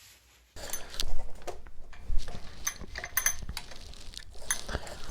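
Small metal engine parts clinking and rattling as they are handled: a run of sharp metallic clicks and ringing taps, starting about half a second in.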